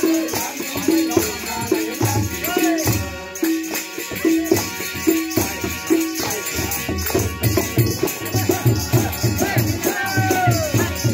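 Live Bodo folk music played for a Bwisagu dance on hand drums and a harmonium, with a sliding melody above. A ringing drum note repeats steadily in the first half; from a little past the middle, deep drum strokes come in at about three a second.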